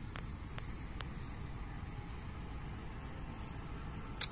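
Steady high-pitched insect shrill over faint low rumble, with a few light ticks early on. Near the end comes one sharp, loud snap as a drawn slingshot is shot.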